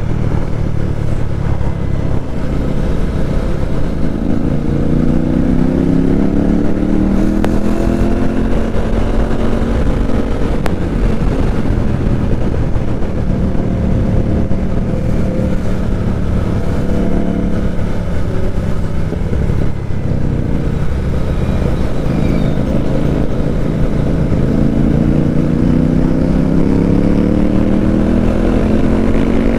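Motorcycle engine and exhaust under way, pulling up in pitch for several seconds, easing back down, then holding steady before climbing again near the end, over steady road and wind noise.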